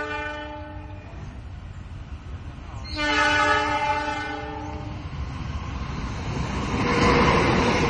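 Train horn sounding two long blasts, the first ending about a second in and the second lasting about two seconds, then the noise of the passing train rising and growing loud near the end.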